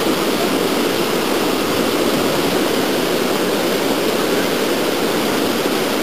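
The Rio Grande running high in flood, churning through whitewater waves: a steady, loud rushing of water.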